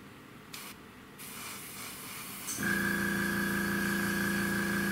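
Airbrush hissing as it sprays paint, first in a short burst and then steadily. A little past halfway the airbrush compressor kicks on and runs with a steady hum.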